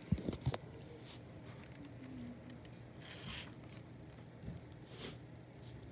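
Faint handling noise: a few sharp clicks in the first half-second, then soft scattered rustles in a quiet room.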